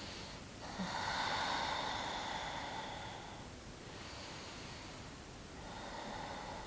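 A person taking a deep breath through the nose: one long, louder breath starting about half a second in, followed by softer breathing.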